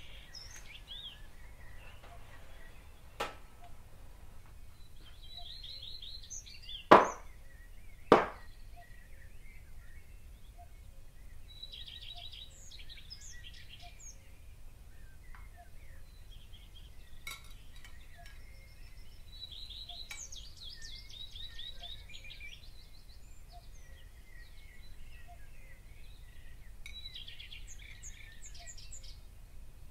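Birds chirping in short repeated trills over a low steady hum, with a faint knock and then two loud sharp clinks about a second apart.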